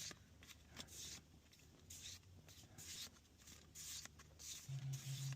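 Pokémon trading cards sliding against each other as a pack is flipped through one card at a time, a soft swish every half-second to second. Two short low hums near the end.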